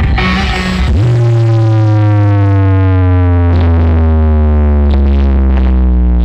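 Loud electronic dance music with heavy deep bass, played through a large 'sound horeg' sound-system rig of single 21-inch subwoofer boxes. About a second in, a sustained synth tone starts and slowly slides down in pitch over the bass.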